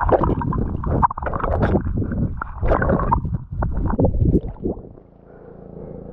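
Water churning and gurgling around a submerged camera in irregular, choppy surges. About five seconds in this gives way to a quieter, steady drone as the camera comes above the surface beside the hull of a moving aluminium boat.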